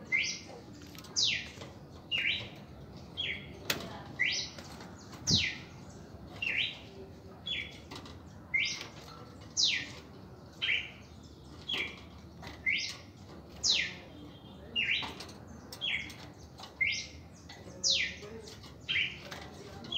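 Red-crested cardinal calling: a sharp note falling steeply in pitch, repeated about once a second, with shorter, lower notes in between. A single sharp knock a little under four seconds in.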